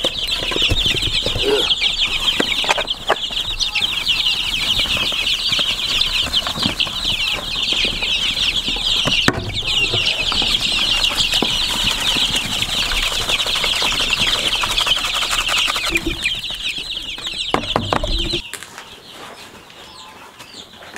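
A brooder full of young chicks peeping continuously, a dense high chorus of many overlapping chirps, with a few knocks from the plastic trough feeder being handled. The peeping cuts off suddenly near the end, leaving a quieter room.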